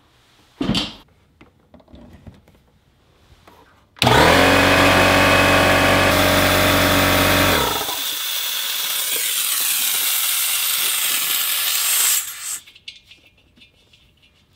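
Porter-Cable pancake air compressor kicking on about four seconds in, its motor and pump running loudly for about four seconds and then stopping. Air then hisses out for about four more seconds through the tank's open drain valve, cutting off when the valve is closed.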